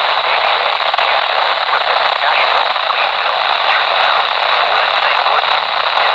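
Steady radio static hiss from a receiver on weak reception, band-limited like a small radio speaker, with a voice reading a weather warning faintly audible beneath it.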